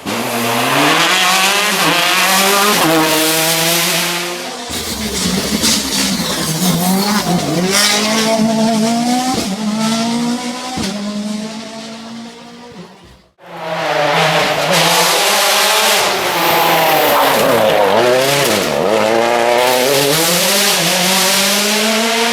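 Rally cars driven hard on a stage, engines revving up and dropping back again and again through gear changes and braking. The sound breaks off abruptly about 13 s in and resumes with another car at full throttle.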